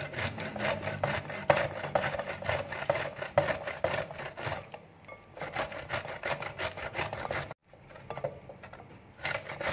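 Peeled fresh pineapple being rubbed up and down the coarse holes of a metal box grater, a quick run of rasping, wet scraping strokes. The strokes grow softer about halfway through, and the sound cuts out for a moment near the end.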